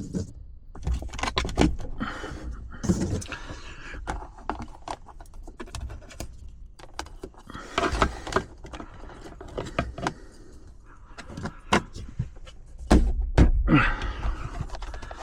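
Plastic interior trim and wiring being handled and pressed back into place in a truck cab: irregular clicks, rattles and scrapes, with several heavier knocks as panels are pushed home.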